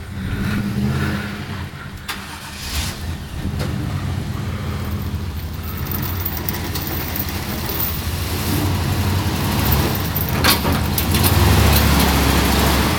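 Stuck pickup truck's engine revving under load as it reverses out of deep mud, the drone getting louder about ten seconds in.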